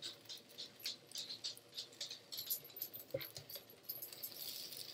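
Light, irregular clicking and scraping, a few times a second, as cooked sandwiches and kitchen utensils are handled at the cutting board and grill, with one soft knock about three seconds in.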